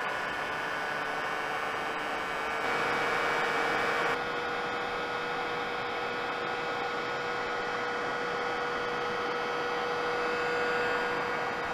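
Harbor Freight heat gun blowing hot air, a steady whir of fan noise with a constant motor tone, while melting crayons. It gets briefly louder about three seconds in, for a second or so, then settles back.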